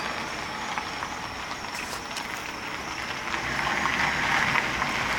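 School bus approaching: a steady engine and road noise that grows gradually louder over the last few seconds.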